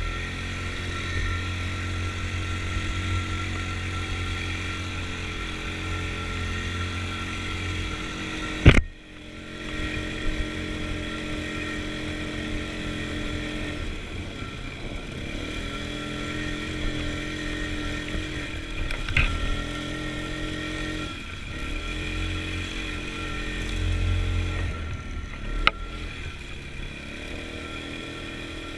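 Snowmobile engine running under way, its speed rising and falling with the throttle. A sharp, loud knock about nine seconds in, and two lighter knocks later.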